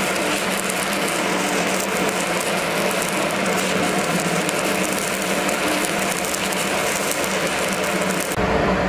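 Stick (shielded metal arc) welding electrode burning against steel, a steady loud crackle and sizzle of the arc that starts abruptly as the arc is struck. Near the end the crackle gives way abruptly to a duller, lower noise.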